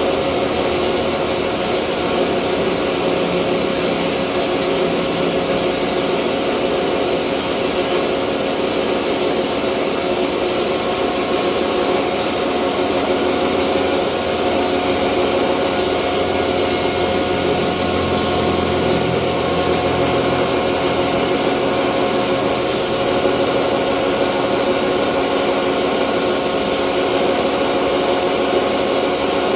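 Rice mill running steadily: an even, loud machine drone with steady humming tones, unchanging throughout.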